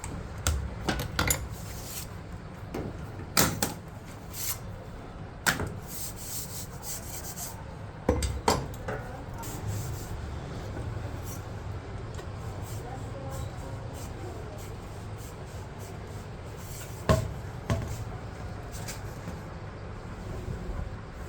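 Rubbing and scraping with about ten scattered sharp knocks, from hand work on a typewriter platen and its rubber shell.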